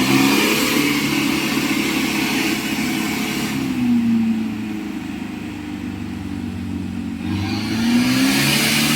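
Motor vehicle engine running under load, its pitch rising and falling several times as it is revved up and eased off. A loud hiss comes in over it at the start and again near the end.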